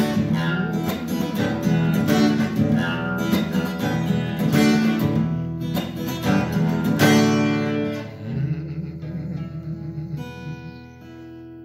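Acoustic guitar strummed steadily, then slowing to a few softer notes and a final chord left ringing and fading away: the close of the song.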